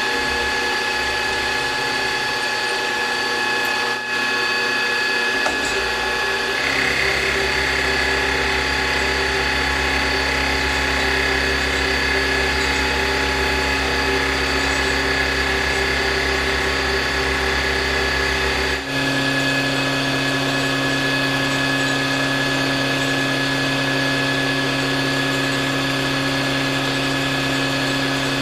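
Milling machine running an end mill that is side-cutting 6061-T6 aluminum bar stock: a steady mechanical whine made of several fixed tones. Its tone shifts about six seconds in and again a little before the twenty-second mark.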